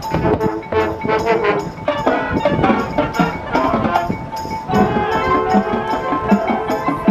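High school marching band playing, with brass and drums over mallet percussion from the front ensemble. A fuller layer of held chords comes in about five seconds in.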